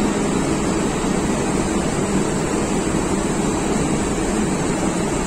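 Steady, unchanging drone of ship's engine-room machinery.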